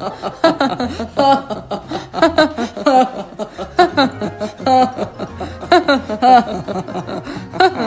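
Two cartoon characters, a lion and a mouse, laughing together in repeated bursts of chuckling.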